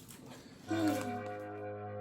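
Background music starts about two-thirds of a second in: steady, sustained held notes.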